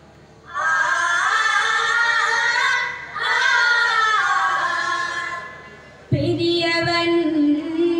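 Vattappattu: a group of boys singing together without instruments, in two long phrases with a short break between them. About six seconds in, a single voice comes in holding a long steady note.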